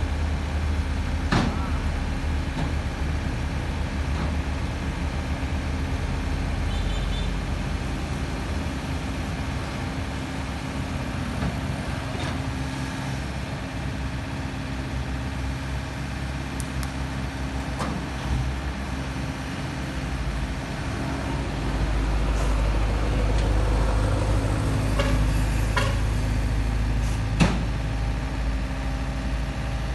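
LiuGong 906F mini excavator's diesel engine running as the machine crawls down a tilted tow-truck flatbed, growing louder in the last third as it works harder. A few sharp clanks sound now and then, the loudest near the end.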